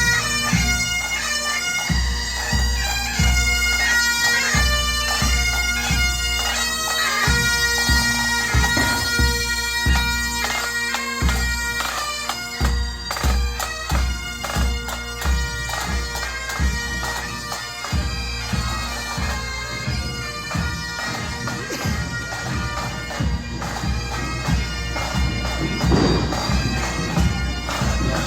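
Bagpipes playing a march tune over steady held drones, with regular drum beats underneath.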